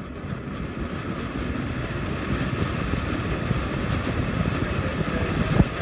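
Imasu centrifugal bathroom exhaust fan running after being switched on, its rushing air noise building over the first couple of seconds as it comes up to speed, then steady. A short knock near the end.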